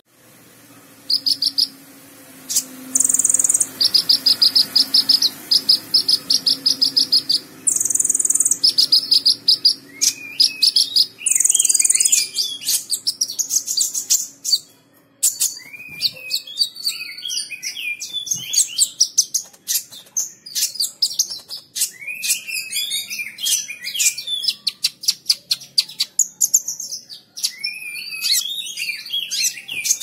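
Sunbird (kolibri ninja) singing. For the first ten seconds or so it gives fast, even, rattling trills broken by short very high buzzy notes, then it switches to a long run of varied quick chirps and twittering.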